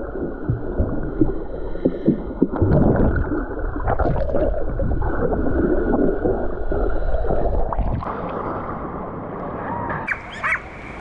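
Muffled underwater water noise: gurgling, rushing water and bubbles stirred by a swimmer, with scattered dull knocks. About ten seconds in, the sound breaks above the surface and turns brighter, with open-air splashing and hiss.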